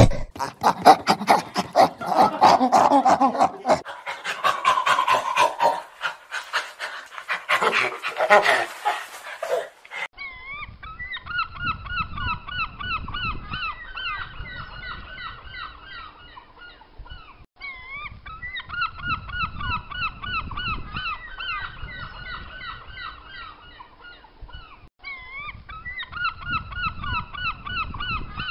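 Orangutan calls for about the first ten seconds, then a flock of flamingos honking: fast, repeated honks in three long runs with short breaks between them.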